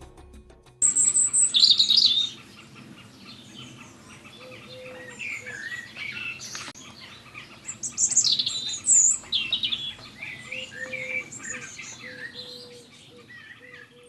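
Several birds singing and chirping in a busy mix of short calls and trills. Music ends about a second in, as the birdsong starts.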